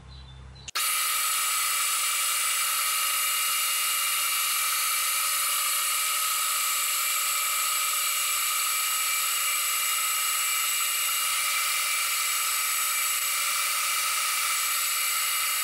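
Deckel FP1 milling machine's spindle running at a steady speed with a high whine, a drill chuck in its head spot drilling the mounting plate. The sound starts abruptly about a second in and cuts off just as abruptly near the end.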